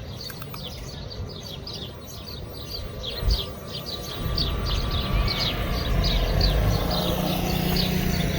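Small birds chirping, with short high chirps several times a second, over a low rumble that grows louder about halfway through.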